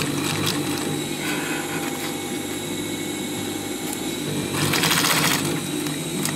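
Sewing machine stitching through layers of canvas around a curved seam, running steadily. About four and a half seconds in, a louder hiss lasts just under a second.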